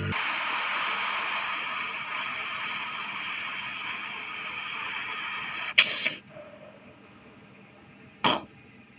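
Air conditioner outdoor unit's fan running with a steady rushing noise, cut off by a sharp loud click about six seconds in. A second sharp click comes near the end.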